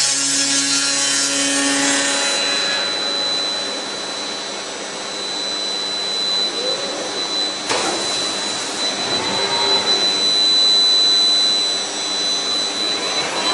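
Routech OIKOS CNC beam-processing centre: its circular saw blade cuts a timber beam, the cutting noise easing about two and a half seconds in. The spindle's steady high whine carries on underneath, with rising and falling pitch sweeps in the second half as the machine works.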